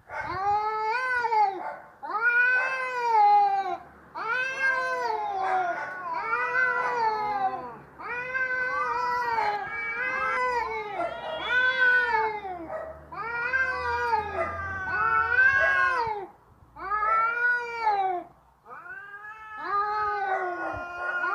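Domestic cat yowling in a long run of drawn-out calls, about a dozen, each rising then falling in pitch, with short breaks between them. This is the aggressive caterwaul of a cat ready to fight.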